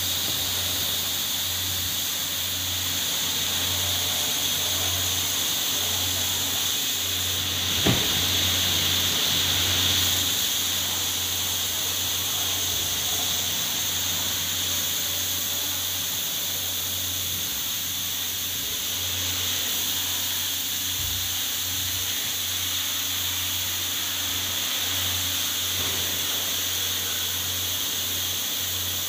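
High-pressure water jet spraying a car's underbody from the wash pit: a steady hiss over a low, even hum. A single brief knock about eight seconds in.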